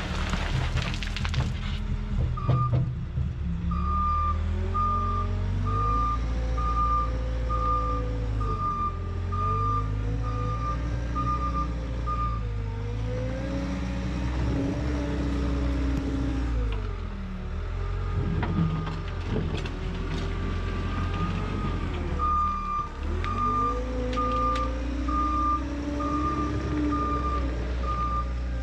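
Trencher engine working under changing load, its pitch rising and falling, with a backup alarm beeping steadily a little more than once a second in two long stretches while the machine reverses.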